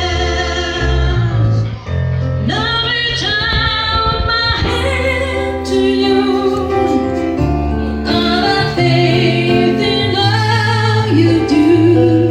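Live duo music through a pair of Rockville Titan portable column array PA speakers: held keyboard chords and bass notes under a wavering melody line.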